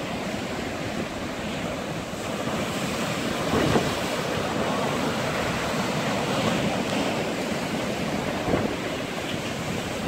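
Heavy surf breaking over concrete tetrapods and rocks: a continuous rushing wash of waves that swells louder about two seconds in and eases off near the end.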